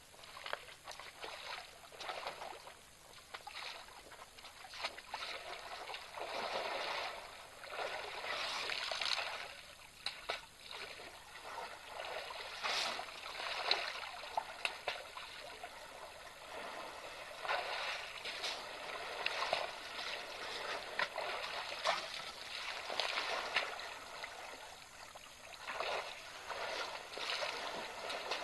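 Water sloshing and splashing in irregular surges as African elephants wade, move about and settle down in a shallow waterhole.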